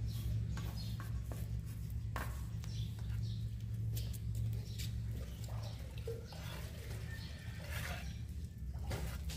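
Steady low hum under scattered scrapes and clicks of tile grout being mixed by hand in a container, worked to a soft consistency for regrouting pool tiles.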